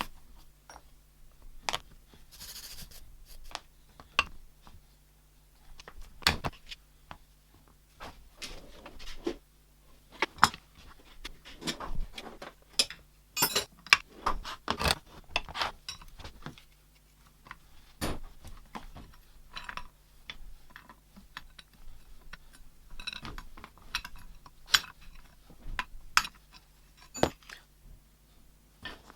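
Metal tools and steel parts clinking, knocking and being set down at irregular intervals, with a few short scrapes, as the old bench shear is worked on by hand.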